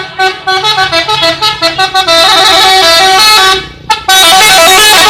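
Telolet multi-tone musical horn playing a quick tune of short notes, then blaring two long held chords, the first about two seconds in and the second near the end.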